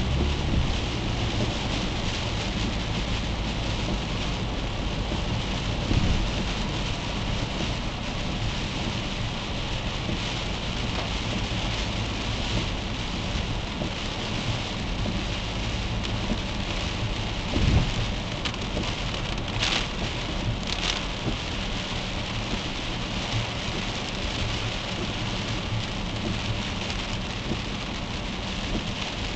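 Heavy rain falling on a moving car's windshield and body, heard from inside the cabin, with the hiss of tyres on the flooded highway. A low thump comes about six seconds in and again near eighteen seconds, and two brief high hisses about twenty seconds in.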